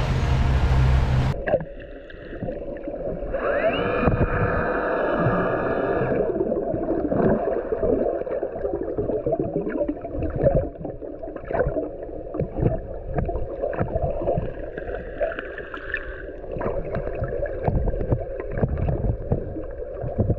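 Muffled underwater sound as a snorkeler dives: a steady low rush of water with gurgling and many scattered clicks and crackles. It opens with about a second of twin outboard motors and boat wake, which cuts off suddenly.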